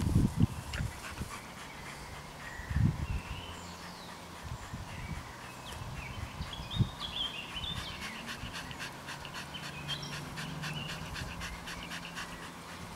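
A dog panting in a quick, even rhythm that grows plain from about halfway through, with a couple of dull thuds earlier on.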